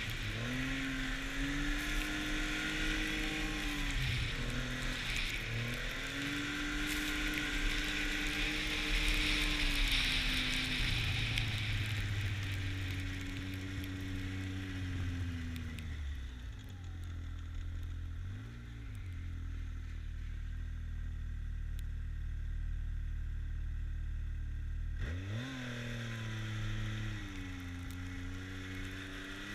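An Arctic Cat snowmobile engine under way on a trail. The engine speed rises and falls with the throttle for the first dozen seconds, and there is a rush of wind and track noise. In the middle it eases off to a low, steady drone with one quick blip. Near the end it revs up again and then settles.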